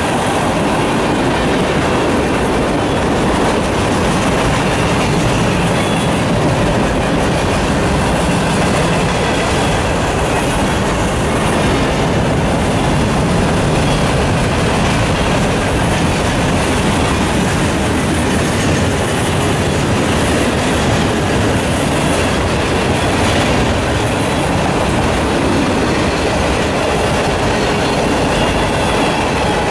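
Freight cars of a Norfolk Southern manifest train rolling past close by: the steady, unbroken noise of steel wheels on the rails as car after car goes by.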